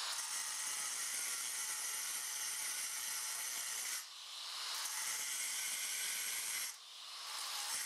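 Handheld angle grinder cutting into a granite countertop along a round sink outline: a steady high whine over a loud hiss. The sound drops away briefly and builds back up twice, about four seconds in and again near the end.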